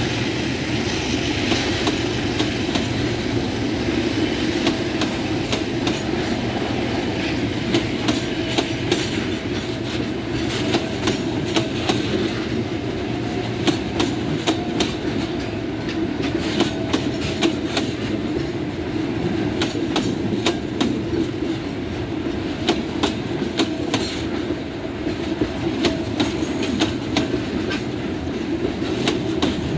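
Covered hopper wagons of a freight train rolling past close by: a steady rumble with rapid clicks and clatter of the wheels over rail joints. A faint wheel squeal comes and goes as the wagons take the curve.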